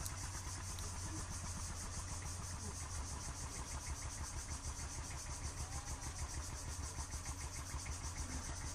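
A fishing boat's engine running steadily, a low hum with a fast, even beat.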